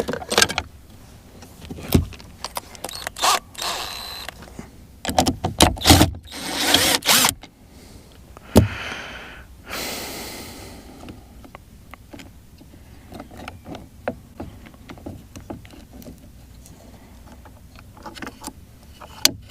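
Small parts of a boat's remote control box being handled and worked on: scattered clicks, knocks and scraping, with a few louder handling noises and a sharp knock near the middle.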